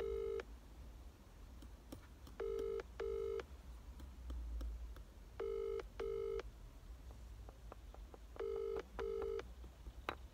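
British double-ring ringback tone from a phone on loudspeaker: a pair of short beeps repeating every three seconds while an outgoing call rings, not yet answered.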